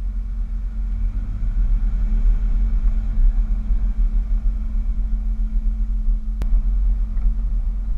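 Dodge Power Wagon pickup driving along a snowy trail, its running gear and engine making a steady low rumble with a steady hum, heard from a camera mounted outside beside the front wheel.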